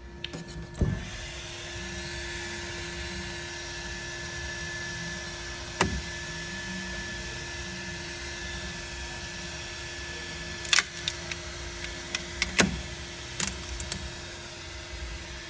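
A small machine running with a steady hum, broken by a few sharp clicks and knocks: one about a second in, one near the middle, and a cluster near the end.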